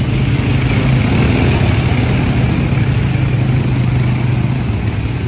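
Several ATV (quad bike) engines running at a steady pitch as the quads wade through muddy water, with water splashing.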